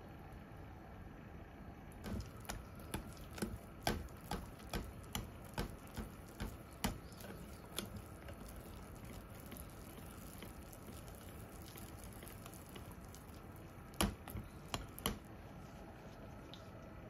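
Wire whisk stirring thick beer batter in a glass bowl: wet squishing, with sharp clicks of the wires against the glass, about two a second for several seconds, then a few more near the end.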